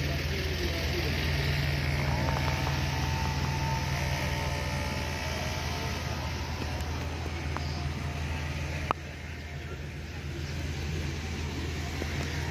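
Steady low hum of an idling vehicle engine, with faint voices in the background and a sharp click about nine seconds in.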